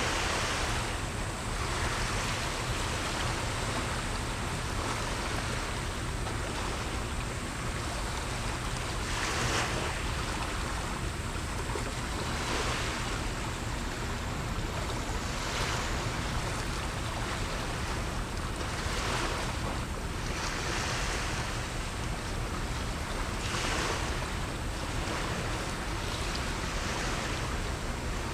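Small sea waves washing in, one swell of hiss every two or three seconds, over a steady low rumble.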